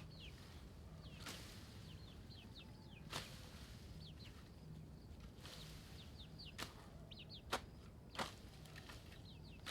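Small birds chirping in short, quick, falling notes, over a faint steady low hum, with a handful of sharp knocks or clicks at irregular intervals.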